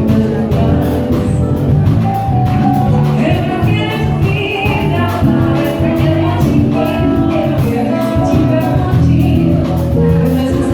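Live band music with a singer, over a steady beat.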